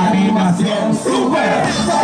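Loud Latin dance music with a singing voice over it, playing for a beach merengue dance class.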